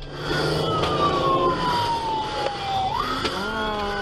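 Police car siren wailing, its pitch falling slowly and then sweeping sharply back up about three seconds in, over a low vehicle rumble.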